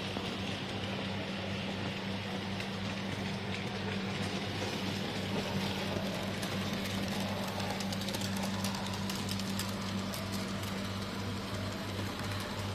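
OO gauge model Titfield Thunderbolt locomotive running on its track: a steady motor hum with a low buzz, and faint light clicks as the wheels run over the rail joints and points.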